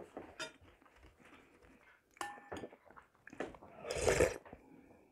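Metal spoon clicking and clinking against a porcelain soup bowl, with one clink ringing briefly a little after two seconds in. About four seconds in comes a loud slurp of noodle soup from the spoon.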